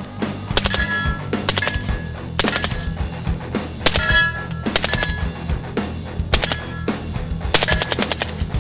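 Rifle fitted with a Rugged Razor 762 suppressor firing in short rapid bursts and single shots, a dozen or so groups through the stretch, over background music.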